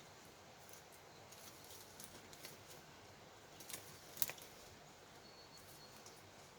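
Faint, irregular crackles and clicks of a wood campfire, with one sharper snap about four seconds in.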